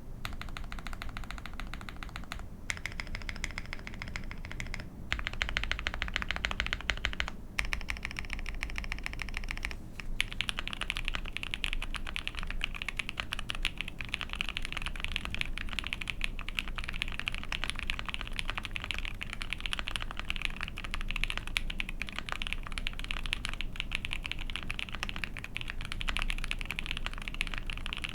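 Typing on an Ai03 Vega mechanical keyboard with a POM plate, lubed and filmed JWK Lavender switches and GMK keycaps. The keystrokes come in a few short stretches with brief pauses over the first ten seconds, then run on as fast, continuous typing.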